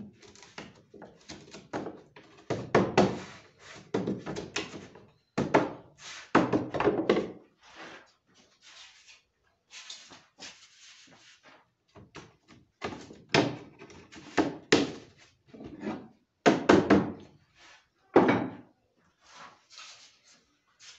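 Cedrinho wood ceiling-lining boards knocking against one another and against the frame as they are set in place: a string of irregular wooden thunks and clatters, some in quick pairs.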